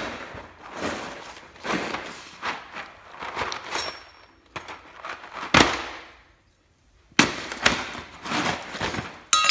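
A cardboard cereal box being torn open by hand: a run of ripping and crackling with sharp cracks at the start and about halfway through, and a short pause near the seventh second.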